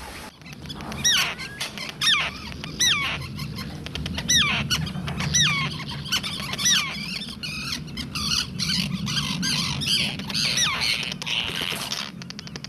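Pied avocet giving repeated agitated calls, about one a second, as it confronts a common tern.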